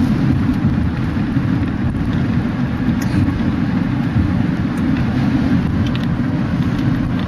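A truck driving, heard from inside the cab: a steady low rumble of engine and road noise.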